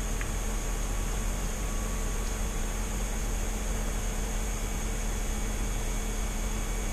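Steady low hum under an even hiss, unchanging throughout, like a fan or appliance running.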